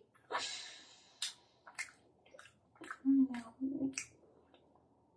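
A long breathy exhale that fades out, then a few sharp light clicks and a short two-part hummed "mm-mm" about three seconds in.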